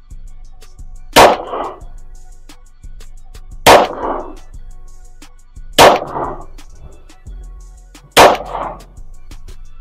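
Four slow, deliberate pistol shots from a 9mm subcompact handgun, spaced about two to two and a half seconds apart. Each is a sharp crack followed by a short ringing echo. Background music plays underneath.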